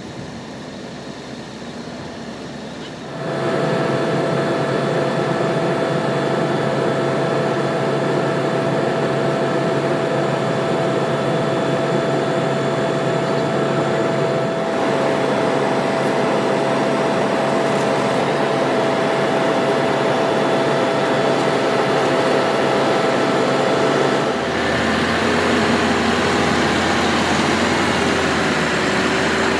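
Crane truck's engine and hydraulics running steadily during a lift, a constant mechanical noise with a held whine. It starts abruptly about three seconds in, and near the end it changes to a deeper engine rumble with a lower tone.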